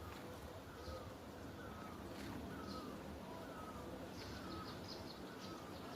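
Faint bird calls: a short chirp repeated about twice a second, with a few higher notes over a low background hum.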